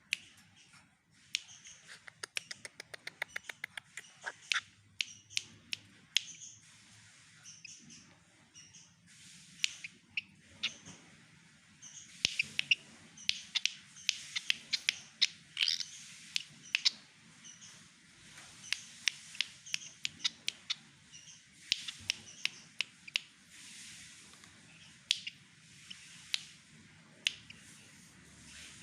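Pied fantail singing a long string of short, sharp chirps and clicking notes, some in fast runs, in an imitation of white-rumped shama song.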